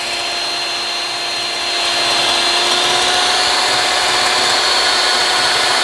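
Electric hand mixer running steadily, its beaters whisking raw eggs in a glass bowl to a froth. It gets a little louder about two seconds in.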